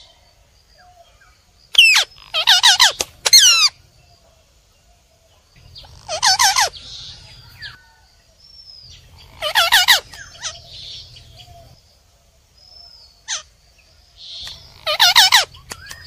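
Rose-ringed parakeets (Indian ringnecks) giving loud, harsh squawking calls in four bouts a few seconds apart, each bout a run of quick wavering screeches.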